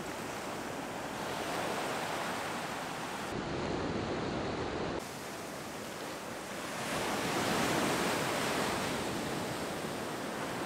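Ocean surf washing in over shallow water, swelling and fading as waves break and run up the sand.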